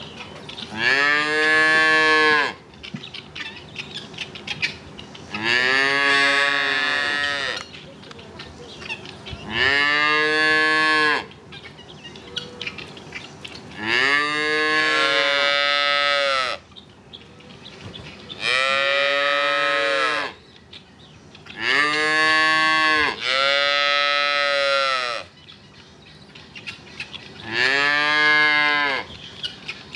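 Holstein calves mooing, about eight drawn-out calls roughly every four seconds, each rising and then falling in pitch; around the middle and two-thirds through, two calls come close together or overlap.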